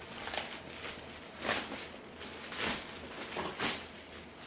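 Clear plastic wrapping crinkling and rustling as it is handled and pulled over a leather tote bag, in four or five short rustles roughly a second apart.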